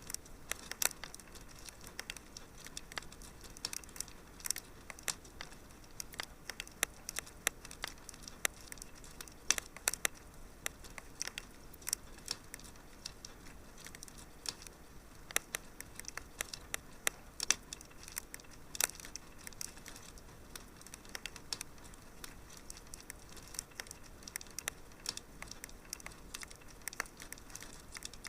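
Wood fire crackling in a fireplace: irregular sharp pops and snaps, several a second, over a soft steady hiss.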